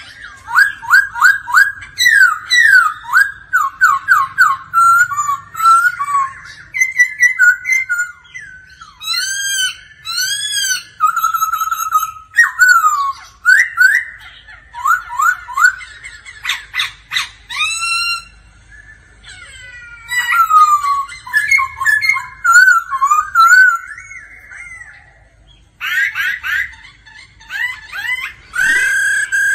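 Black-throated laughingthrush (silver-cheeked laughingthrush) singing a loud, varied whistled song: quick runs of repeated slurred notes and rising-and-falling phrases, broken by a few short pauses.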